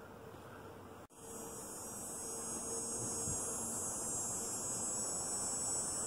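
Cicadas buzzing in the trees: a loud, steady, high-pitched buzz cuts in about a second in, swells for a moment and then holds steady, over a faint low hum.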